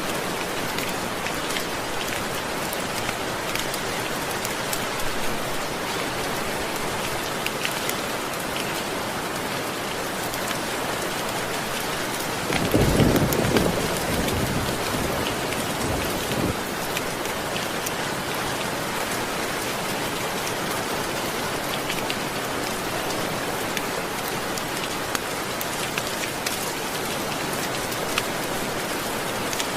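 Steady rain falling on a surface, an even hiss, with a low rumble of thunder about thirteen seconds in and a fainter one a few seconds later.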